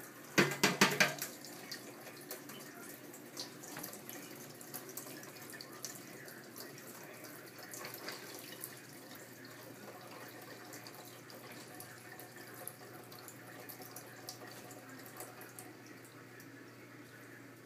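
Dishwasher running: water spraying and sloshing inside, with a steady low hum and scattered faint clicks. A quick burst of loud knocks comes just after the start.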